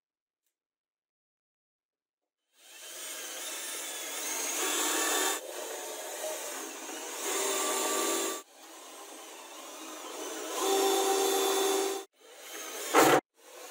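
Cordless drill-driver driving screws into laminated chipboard, starting about two and a half seconds in: three long runs of the motor, each growing louder as the screw bites in, then a couple of short trigger bursts near the end.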